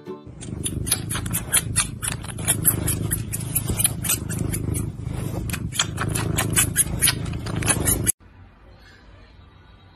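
Tabby kitten gnawing on a finger right at the microphone: a rapid, irregular run of wet mouth clicks over a low rumble, cutting off abruptly about eight seconds in to faint room sound.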